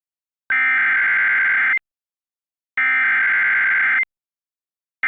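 Emergency Alert System SAME header: two buzzy bursts of digital data tones, each just over a second long and about a second apart, with a third burst starting right at the end. These bursts open an EAS alert and carry its coded message, here a severe thunderstorm watch.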